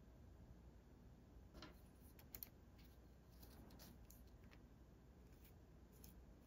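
A handful of faint clicks and light metal ticks as a wooden pencil is handled and fitted into a metal pencil extender, over near-silent room tone.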